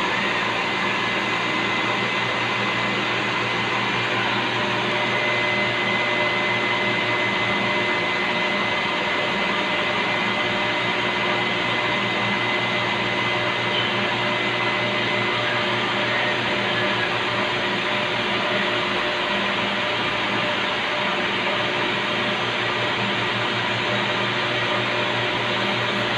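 Steady hum and whir of a Doosan CNC vertical machining centre running, with a thin high whine that comes in about five seconds in and fades after about sixteen seconds.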